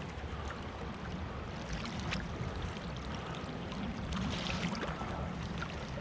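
Steady rush of flowing stream water, with a low rumble and a few faint ticks.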